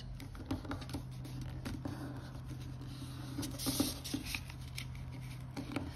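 Origami paper rustling and crinkling as hands fold and crease it: a run of small, irregular crackles and taps over a steady low hum.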